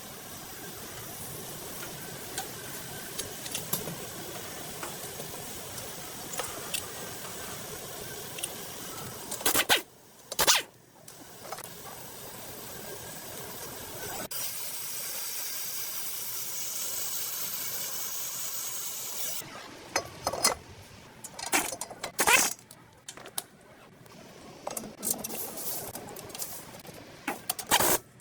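Front brake service on a Toyota Camry: a long hissing spray, strongest for about five seconds in the middle, broken by sharp metal knocks and clicks from tools and brake parts, with a cluster of knocks near the end.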